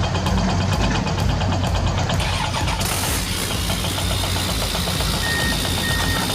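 Engine-idling sound of a toy RC excavator, a steady low rumble with a fast ticking rhythm that changes about three seconds in, and three short high beeps near the end.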